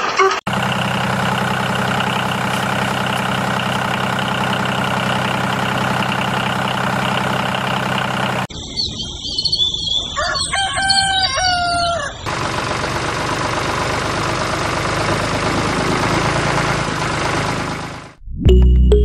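Small electric motor of a homemade miniature flour mill running with a steady hum as it grinds, for about eight seconds. Then a rooster crows, followed by a steady rushing noise.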